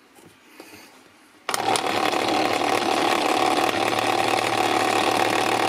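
Electric paint shaker switching on about a second and a half in and running steadily on mains power, rapidly vibrating a plastic dropper bottle of paint held on by a rubber strap.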